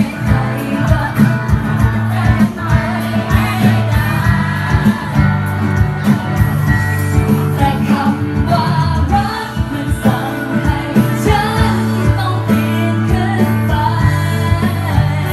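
A woman singing a pop song live into a microphone, with acoustic guitar accompaniment and a steady beat, amplified through PA speakers.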